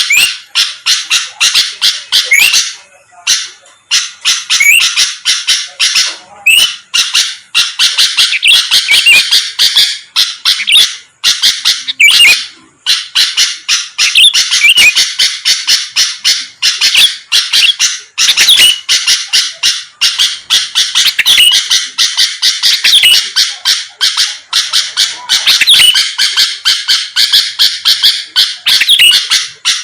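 Sooty-headed bulbul (kutilang) singing non-stop in a fast, loud chattering stream of short calls, with brief pauses about 3 and 12 seconds in.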